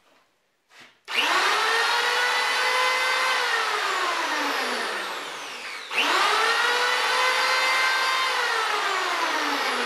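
Status PL82SP 850 W electric hand planer run with no wood: its motor and cutter drum spin up with a rising whine about a second in, run a moment, then wind down with falling pitch. It is switched on again near the middle and winds down once more near the end. It runs very quietly.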